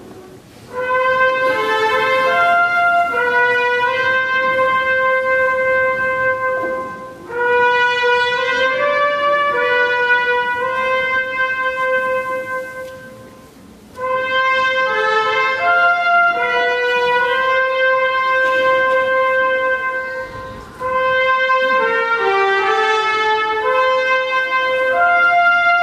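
Trumpet playing a slow melody, with a second line moving alongside it in places, in four phrases of about six seconds each with short breaks between them.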